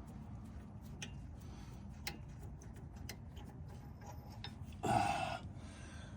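Scattered light clicks and taps of hand tools working on a brake caliper, with a louder half-second scrape about five seconds in.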